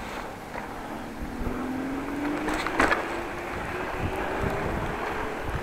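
A bicycle ridden over a wet street, heard from the handlebars as a steady rush of wind and tyre noise. A sharp knock comes about halfway through, a few low thumps follow near the end, and a faint tone slowly rises in pitch beneath them.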